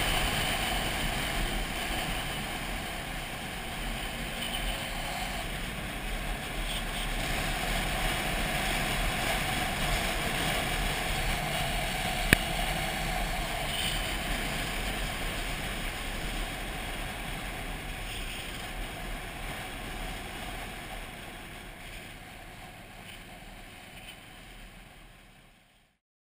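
Motorcycle riding steadily, its engine and wind noise picked up by a camera mounted behind the windscreen, with one sharp click about twelve seconds in. The sound fades away gradually over the last several seconds.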